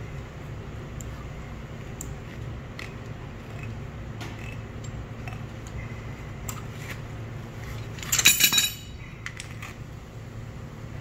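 Small metallic clicks and clinks as a hand-held threaded bushing-compression tool is worked, then a loud, brief metal clatter about eight seconds in as the steel tool parts are put down on the floor. A steady low hum runs underneath.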